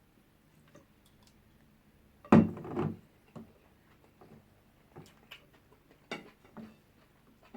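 Eating sounds: scattered light clicks and taps of a spoon against a plate, with one louder clatter about two seconds in.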